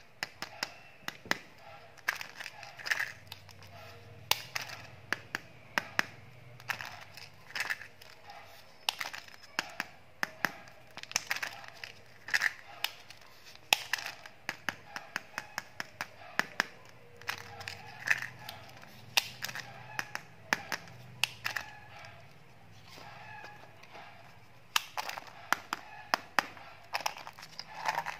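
Hard plastic surprise-egg candy packages clicking and knocking against one another as hands pick through a pile and turn one over, in many irregular sharp clicks and cracks.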